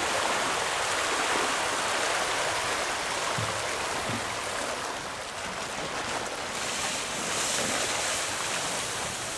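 A dense school of striped catfish (tra) splashing and thrashing at the water's surface in a feeding frenzy over pellet feed, a steady mass of splashing.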